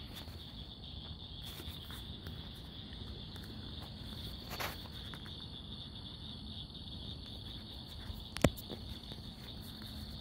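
Night insects calling in a steady, high-pitched chorus. A single sharp click stands out over it about eight seconds in.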